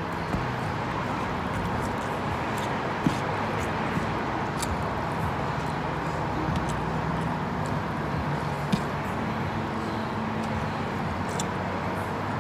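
Eating by hand: chewing and lip smacks, with a few short sharp clicks as fingers scoop rice and chicken off a metal tray, over a steady background hum.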